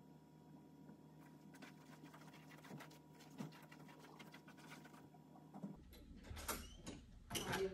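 Quiet classroom room tone with a low hum and scattered faint clicks and rustles from someone moving about among the desks, then, after an abrupt change in background about six seconds in, two louder knocks less than a second apart.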